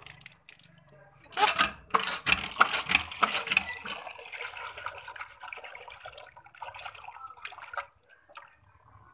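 Tap water running into a steel bowl of flattened rice (poha), splashing as the flakes are rinsed. It starts about a second and a half in, is loudest for the next couple of seconds, then thins out and fades near the end.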